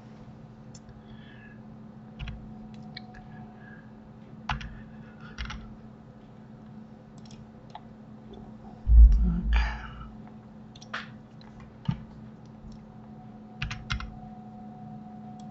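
Scattered computer keyboard keystrokes and mouse clicks, short and irregularly spaced, over a steady low hum, with one heavier thump about nine seconds in.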